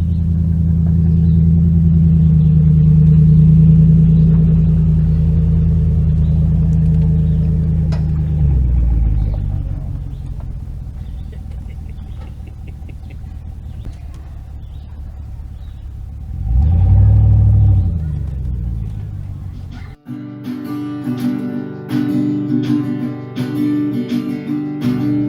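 A vehicle engine runs steadily with a low hum, then dies away about eight seconds in. Around seventeen seconds an engine sound briefly swells and fades again. About twenty seconds in, strummed acoustic guitar music starts abruptly.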